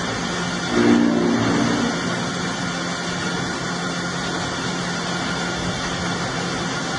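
Heavy machinery running with a steady mechanical noise and low hum. About a second in, a louder humming stretch lasts about a second before it settles back.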